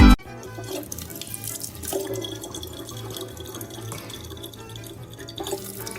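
Water running steadily, like a tap, with faint music underneath.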